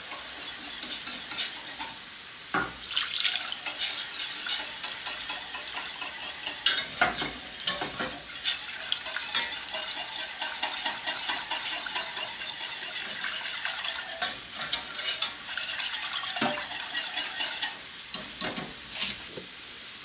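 A utensil stirring gravy in a stainless steel saucepan, scraping the pan in continual strokes with a few sharper clinks, over a light sizzle; milk and turkey broth are being worked into a butter-and-oil roux.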